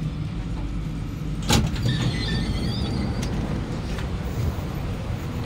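The doors of a stopped SMRT C151B train slide open with a sharp clunk about a second and a half in, followed by a brief high wavering tone for about a second. The train's steady low hum runs underneath.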